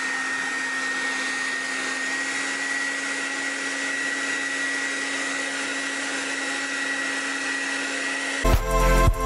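Hair dryer running steadily with a high whine, blowing on a damp dog's coat as it is brushed. It cuts off near the end, where music comes in.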